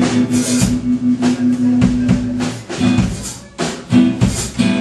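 Live drum kit struck in loose, uneven hits while an amplified instrument holds a low note for a couple of seconds: a band warming up and noodling before a song.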